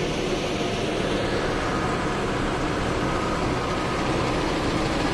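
Diesel engine of a loaded Ashok Leyland lorry running steadily as the truck approaches, growing a little louder near the end.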